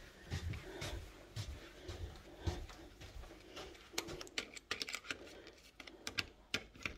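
Soft footsteps, then from about four seconds in a quick run of sharp clicks and taps as a hotel key card is fumbled into the wall card holder that switches on the room's power.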